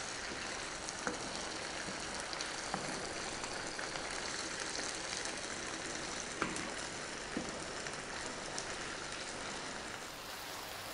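Tomato and vegetable sauce sizzling and simmering in a frying pan, stirred with a wooden spoon that gives a few light taps and scrapes against the pan.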